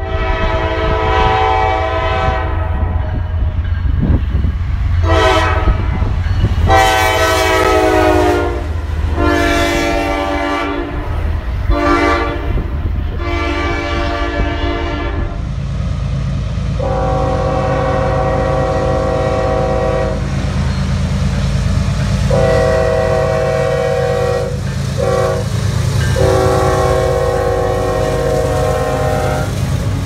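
Freight locomotive air horns blowing chord-like blasts in the grade-crossing pattern of long, long, short, long, twice over from two different trains, over the steady low rumble of the approaching diesel locomotives.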